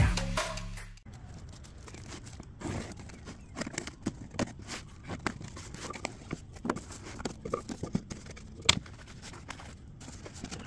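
Electronic intro music cuts off about a second in. Then a cardboard box is opened and unpacked by hand: the flaps rustle and plastic-wrapped hydraulic thumb parts crinkle and knock about, in irregular clicks and scrapes, with one sharper click near the end.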